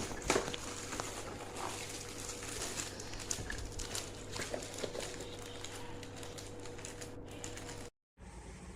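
Typing on a HyperX Alloy Origins mechanical keyboard with clicky blue switches: a quick, uneven run of key clicks that cuts off abruptly shortly before the end.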